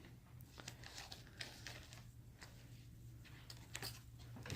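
Faint handling noises of trading cards and a booster-pack wrapper: a scatter of light ticks and rustles over a low steady hum.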